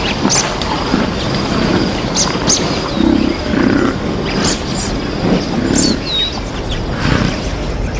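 African buffalo giving repeated short, low grunts, with birds chirping in the background.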